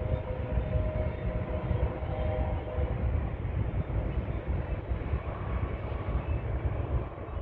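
Freight train rolling along the track, a steady low rumble of locomotives and cars. A few faint held tones fade out in the first three seconds.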